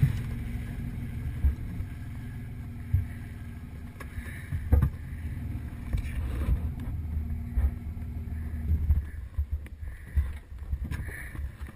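An engine idling with a low, steady hum that stops about nine seconds in, and a few scattered knocks.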